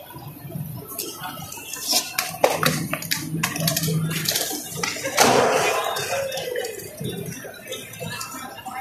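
Skateboards on a hard tiled floor: wheels rolling and several sharp clacks and knocks of boards hitting the ground.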